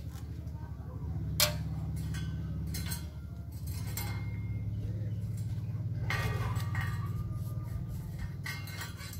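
Galvanised steel wall-spike strips clinking and clicking as they are handled and set down on a concrete wall, one sharp knock about a second and a half in and a cluster of ringing clinks later on. Under it all runs a steady low droning hum.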